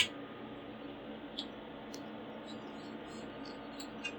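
Faint steady hum with one sharp click at the very start and a few soft ticks later on, from handling a desktop PC's hardware.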